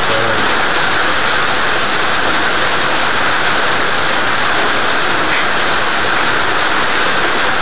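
Heavy rain falling, a loud, steady hiss with no breaks.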